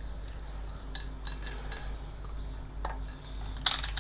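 Light metallic clicks and clinks from handling a multimeter's test probes and parts on an amplifier circuit board, with a quick run of loud clicks near the end. A faint steady low hum sits underneath.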